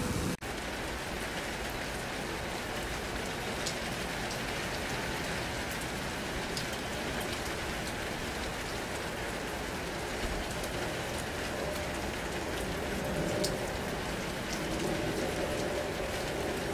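Steady hiss of rain with scattered drop ticks. A faint steady whine from the approaching electric train comes in about ten seconds in and grows over the last couple of seconds.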